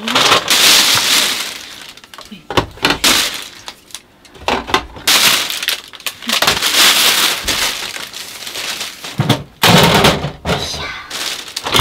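Things being handled: stretches of rustling mixed with sharp knocks and clinks.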